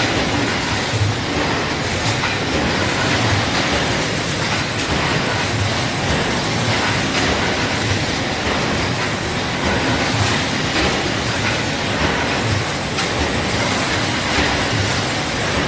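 An automatic 20-litre pail can making machine running: a steady, dense mechanical clatter as the cans are moved along through its stations, with low knocks now and then.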